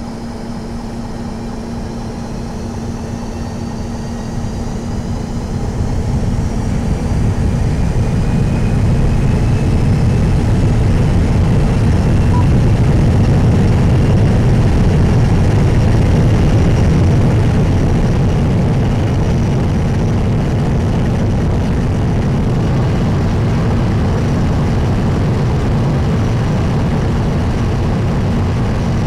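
Turbofan jet engine running in a test tunnel, air rushing through it: a low rumble that grows louder over the first several seconds and then holds steady, with faint whines slowly rising in pitch.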